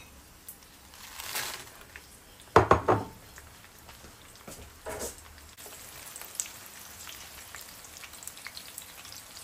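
Dried puya and morita chiles frying in hot olive oil: a couple of clattering knocks about three seconds in, then from about halfway a steady crackling sizzle.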